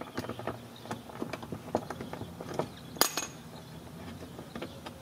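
A small hand ratchet with a 7/32-inch socket clicking in short, irregular runs as it backs out a screw holding the fender liner to the bumper, with one sharper click about three seconds in.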